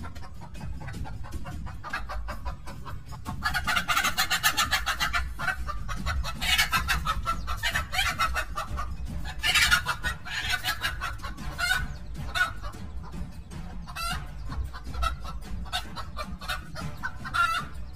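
Mother hen squawking and clucking in alarm in several loud bursts as she defends her chicks against a cobra, with smaller outbursts near the end.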